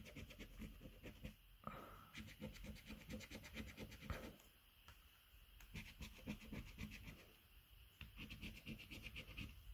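A coin scraping the scratch-off coating of a paper scratchcard in quick, faint, repeated strokes, with a couple of short pauses.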